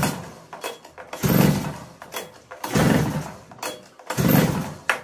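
2-stroke mini tiller's recoil starter pulled four times, about one pull every second and a half, each a short whir of the rope cranking the engine. The engine does not fire, a no-start that the owner puts down to a faulty carburettor whose primer bulb will not firm up.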